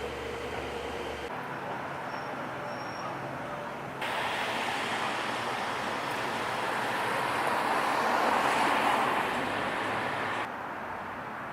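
Outdoor street ambience with road traffic, in several short cut-together segments; the traffic grows louder between about four and ten seconds in, swelling as if a vehicle passes, then drops suddenly.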